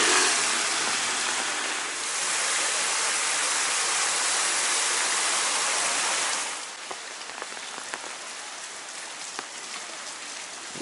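Heavy rain falling on a wet street, a dense steady hiss. About six and a half seconds in it drops to lighter rain, with separate drops tapping close by.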